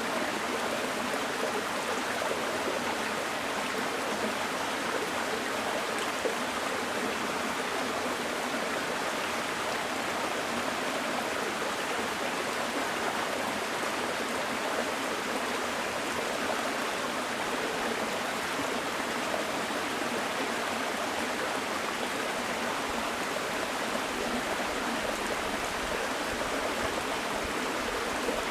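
Small mountain stream flowing and babbling over rocks, a steady rush of water.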